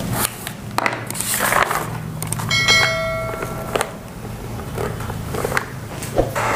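A short bright chime of several ringing tones, under a second long, about two and a half seconds in: the notification-bell sound effect of a subscribe-button animation. Around it are scattered clicks over a steady low hum.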